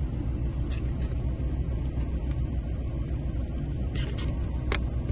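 Plastic laptop screen-bezel clips snapping into place: a few short, sharp clicks, the loudest near the end, over a steady low rumble.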